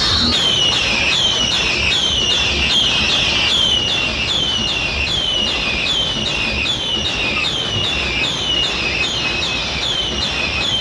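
Electronic siren-like sound effect: a high falling whoop repeated evenly about twice a second, over a low rumble.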